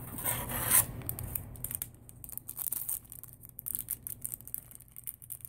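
A plastic zip-lock bag being pulled open, with a loud crackling burst in the first second, then scattered rustling and small clicks of plastic being handled.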